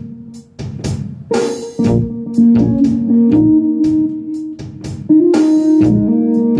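Band music with a drum kit keeping a steady beat under guitar and bass. There are cymbal crashes about a second in and again about five seconds in, and the music is louder after the second crash.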